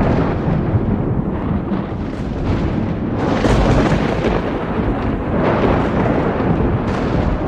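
Thunder rumbling continuously during a storm, with two louder swells, one about three and a half seconds in and another about five and a half seconds in.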